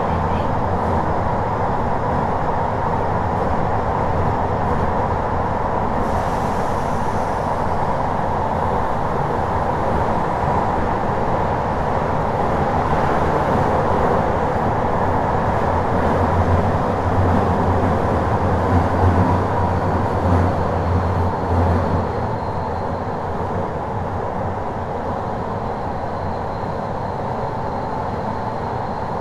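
Kyoto Municipal Subway Series 50 train running in the tunnel, heard from inside a passenger car: a steady rumble of wheels on rail with a low drone. It gets a little quieter about three-quarters of the way through, and a faint high whine runs under it late on.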